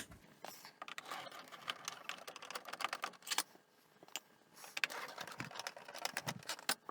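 Irregular light clicks, taps and rattles of hands working on a Betamax video recorder's case and its screws while the cover is taken off.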